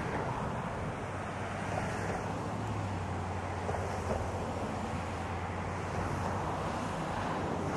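ALCO S4 diesel locomotive running with a steady low engine drone, mixed with wind rumbling on the microphone.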